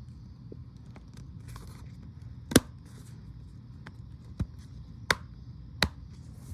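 Small fidget toys being handled, giving scattered sharp clicks and taps, the loudest about two and a half seconds in and three more in the second half, over a low steady hum.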